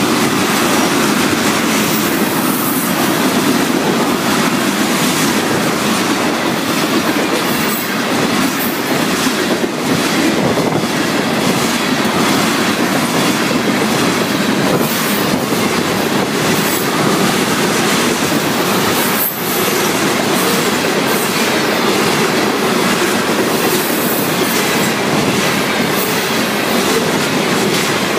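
Florida East Coast Railway freight train of tank cars rolling past at a grade crossing: a steady loud rumble of steel wheels on rail with a repeated clickety-clack as the wheelsets cross the rail joints.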